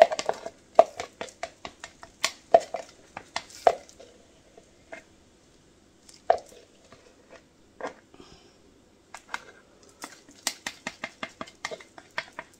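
Plastic stir stick tapping and scraping against the inside of a plastic measuring cup while the last of the resin is scraped out: a run of sharp, irregular clicks, sparse for a few seconds in the middle.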